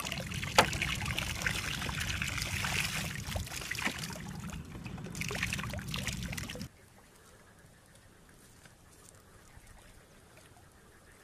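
Water splashing and trickling as plastic-bottle fish traps are handled and lifted out of a shallow muddy ditch, with sharp clicks and a low rumble underneath. It stops abruptly about two-thirds through, leaving only faint background.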